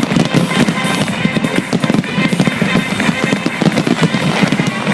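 Fireworks bursting in rapid succession, a dense run of bangs and crackles, with music playing underneath.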